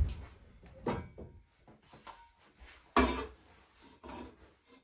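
A broom sweeping a wooden floor, its bristles brushing in short strokes. Sharp knocks on the boards come at the start, about a second in, and loudest about three seconds in.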